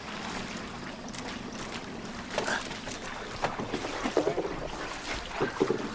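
A small boat's motor runs steadily in a low, pulsing hum, with scattered short sharper sounds over it during the second half.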